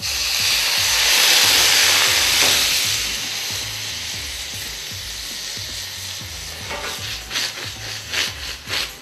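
Brandy poured into a hot skillet of mixed berries on a gas burner, hitting the pan with a sudden loud sizzle and hiss as it is flambéed; the sizzle fades over several seconds. Near the end, a few short sizzling bursts come as the flaming pan is shaken.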